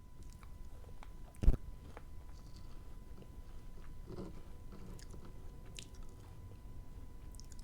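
Close-miked eating by a person with braces: biting and chewing, with small wet clicks and crunches. A single sharp, loud knock comes about a second and a half in.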